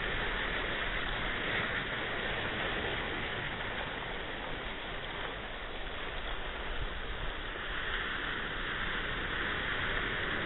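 Ocean surf: a steady rush of breaking and washing waves that swells again near the end.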